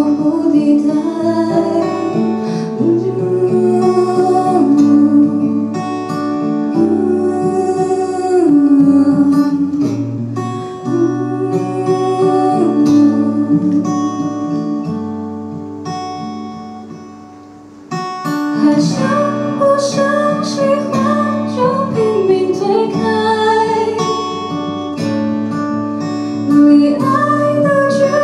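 A woman singing a slow, tender song with an acoustic guitar played live. A little past halfway the music dies down almost to nothing, then comes straight back in fuller and louder.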